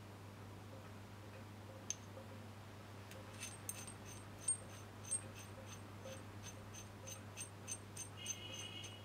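Light metallic clicking of small steel adapters and a bolt from an AC compressor clutch tool kit being handled and fitted together by hand: a single click about two seconds in, then from about three seconds in a run of clicks at roughly three a second, each with a thin ring, and a short squeak near the end. A low steady hum lies underneath.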